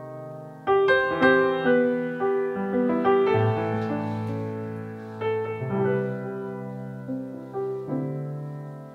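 Background piano music: a gentle melody of struck notes, each fading away after it sounds.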